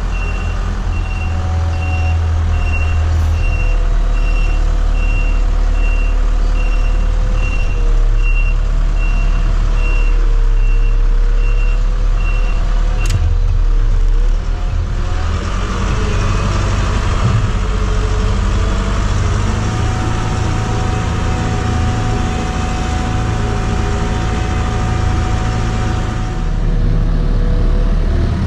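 Diesel engine of a farm machine running steadily under load while rolling a silage pit, with a reversing alarm beeping at a regular pace. About halfway through the beeping stops with a sharp click and the engine note shifts as the machine changes direction.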